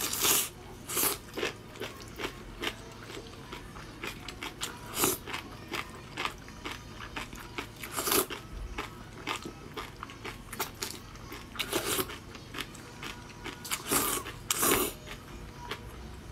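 Close-miked eating: spicy instant noodles and kimchi being chewed, with many short crunches and clicks of the mouth and several louder slurps of noodles, the biggest a pair near the end.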